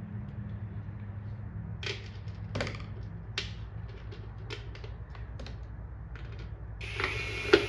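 Scattered light clicks and taps of tools and screws against the sheet-metal letters, then a power drill runs briefly near the end, ending in a sharp click.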